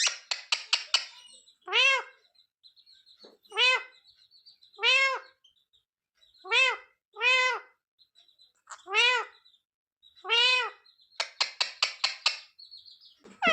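Ringneck parrot (rose-ringed parakeet) calling: a quick run of clicking chatter, then seven short arched squawks one to two seconds apart, and another fast chatter near the end.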